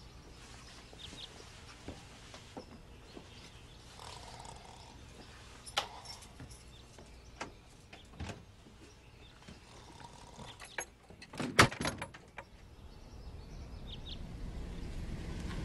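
Quiet room at night: faint background hiss with scattered small clicks and knocks, and a brief burst of sharp clicks about two-thirds of the way in. A low rumble swells near the end.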